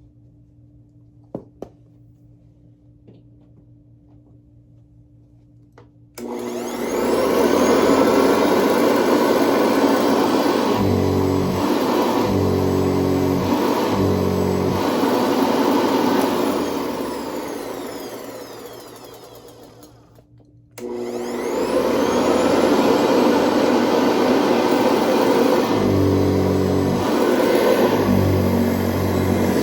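Vintage Hoover Convertible upright vacuum cleaner switched on about six seconds in, running loudly, then coasting down with falling pitch after it is switched off, and switched on again near the twenty-one-second mark. It runs with a noise that the owner believes comes from the loose Hoover roundel on the hood.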